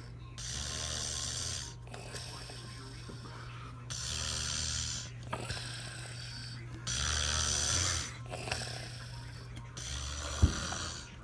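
A sleeping man snoring through his open mouth: four long, breathy snores about three seconds apart. A single sharp knock comes near the end.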